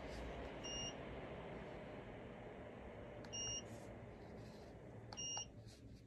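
Bladeless ceiling fan running with a steady rush of air, and three short high beeps from its receiver as remote commands come in, spaced roughly two and a half and two seconds apart. The rushing falls away shortly after the last beep.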